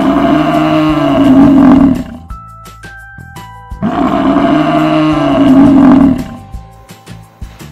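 Water buffalo lowing: two long moos about two seconds each, the second starting about four seconds in, each rising and then falling slightly in pitch.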